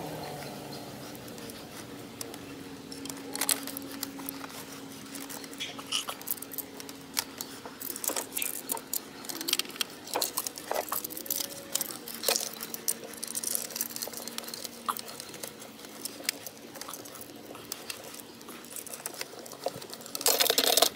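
Scattered light clicks, taps and small rattles of plastic and metal parts being handled and fitted during reassembly of a trolling motor's head, over a faint steady hum, with a brief louder noise near the end.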